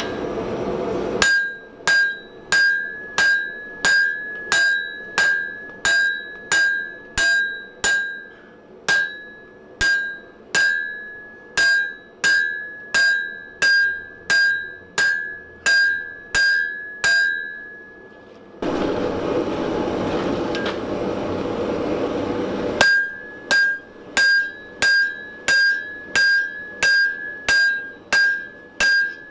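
Hand hammer striking hot steel on a French anvil in a steady rhythm of about one and a half blows a second, each blow leaving the anvil ringing with a clear high tone. Past the middle the hammering stops for about four seconds and a steady rushing noise is heard, then the blows start again.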